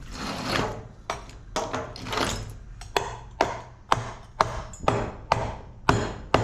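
Hammer blows knocking apart an LED light fixture: sharp, even strikes at about two a second, starting about a second in.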